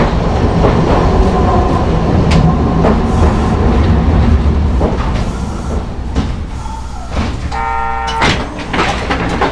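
Hankai Tramway Mo 161 tram running along street track, heard from inside the car: the hum of its nose-suspended traction motors and gears with wheels clicking over rail joints, easing off from about five seconds in. A brief tone sounds about eight seconds in.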